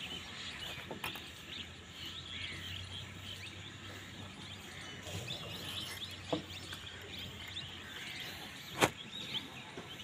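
Small birds chirping on and off in the background, with a single sharp knock of wood near the end as the hinged door of a wooden box trap is handled.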